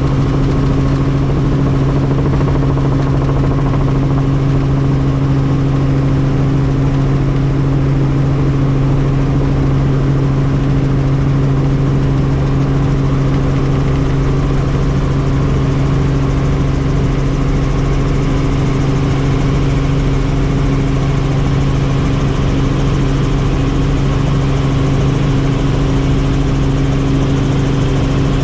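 Helicopter in flight: a loud, steady drone of engine and rotors with a constant low hum that does not change.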